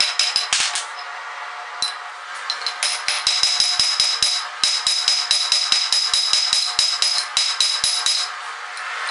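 Hand hammer striking red-hot steel on an anvil in quick, even blows, about five a second, each with a high metallic ring. The hammering pauses for about two seconds around a second in, and briefly near the end.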